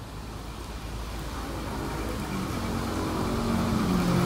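Diesel locomotive of an approaching train, its engine hum growing steadily louder as it nears, with a faint steady high tone above it.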